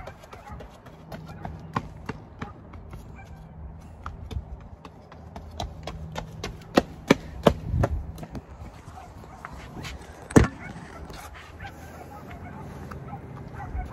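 Running footsteps on a concrete path: a scatter of sharp taps, with a few louder ones about seven seconds in and the loudest about ten seconds in.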